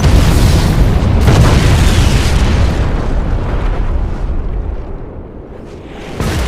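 Explosion sound effect: a sudden loud boom with a deep rumble and a second blast about a second later, fading slowly over several seconds, then a short hit near the end.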